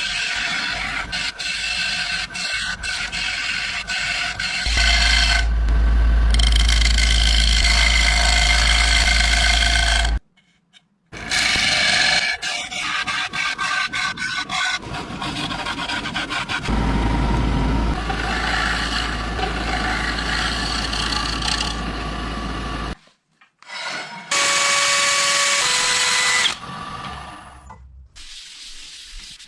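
Woodworking work sounds in short clips cut together: wood being rubbed and rasped, with some stretches of steadier, machine-like noise. The clips stop and start abruptly, with two short silent gaps between them.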